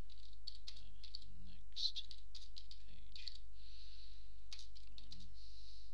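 Typing on a computer keyboard: a run of quick, irregular key clicks as a sentence is typed, over a steady low electrical hum.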